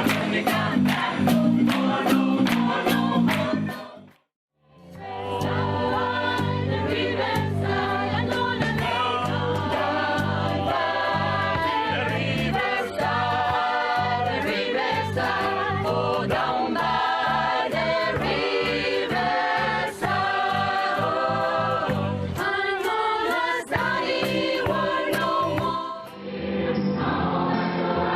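Gospel choir singing in harmony. There is rhythmic music first, a brief silence about four seconds in, then the choir comes in. Near the end the sound quality changes, as at a cut between recordings.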